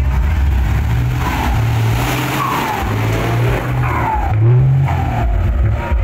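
Ten-wheeler truck's diesel engine revving hard in several pulls as it drives off, its pitch stepping up and down between them, with a few short falling whistles above it.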